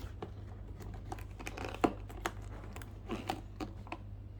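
Cardboard game box and its packing tape being pulled and worked at by hand: crinkling, rustling and tearing, with a sharp click a little under two seconds in.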